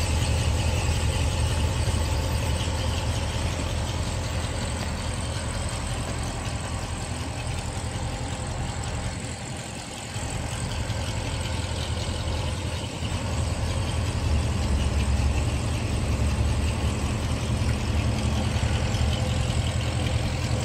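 Chevrolet Corvette C7 Z06's supercharged 6.2-litre LT4 V8 idling steadily with a deep low rumble. It goes briefly fainter about halfway through, then louder again.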